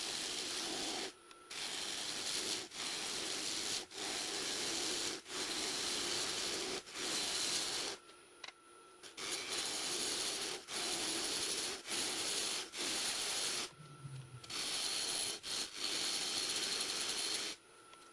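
Lathe gouge cutting into a spinning elk-antler-and-resin bowl blank: a series of scraping passes, each a second or two long, with short breaks between.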